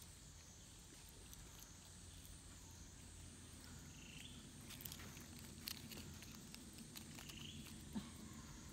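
Near silence: faint outdoor ambience with a few soft clicks and rustles.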